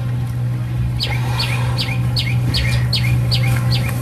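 A bird calling a quick series of about nine repeated, falling, high notes, roughly two or three a second, starting about a second in, over a steady low hum.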